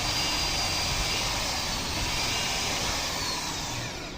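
A machine running steadily with a loud rushing noise and a faint high whine that wavers a little in pitch, easing off near the end.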